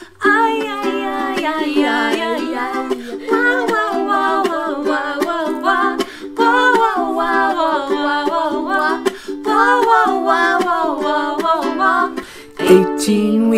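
Ukuleles strumming chords while voices sing the tune without words.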